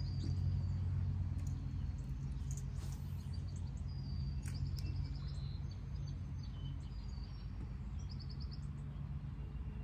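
Outdoor ambience: small birds chirping with quick high trills here and there, over a steady low rumble.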